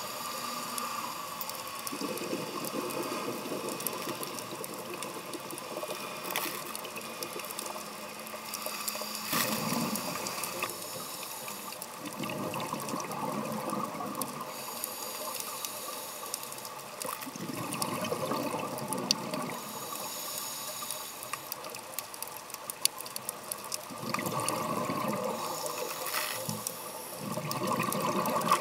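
Underwater scuba breathing: a diver's regulator exhaust releases bubbles in a low rushing burst every several seconds, over a steady hiss with scattered clicks.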